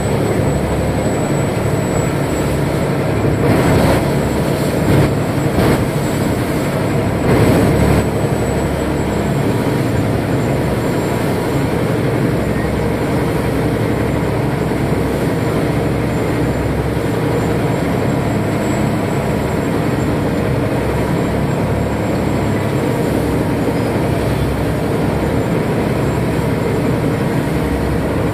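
Canal express boat's diesel engine running loud and steady under way, with water and wind noise; a few brief louder swells between about four and eight seconds in.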